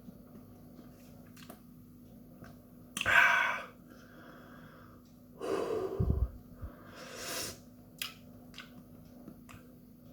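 A man breathing hard through the burn of a superhot chili pod: a few sharp, noisy exhales and sniffs, the loudest about three seconds in, with small wet mouth clicks from chewing in between.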